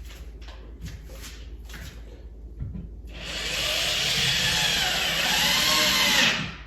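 Handling clicks, then a power drill running for about three seconds as it drives a screw into a TV wall mount, its pitch sagging and recovering under load before it stops abruptly near the end.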